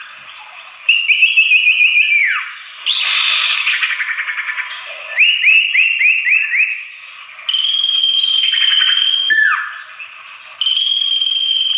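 Common iora (sirtu) calls played as a bird-lure recording, in a repeating cycle. It has quick runs of short repeated notes, a harsh buzzy chatter, a burst of five upswept notes, and long steady high whistles that drop sharply in pitch at the end.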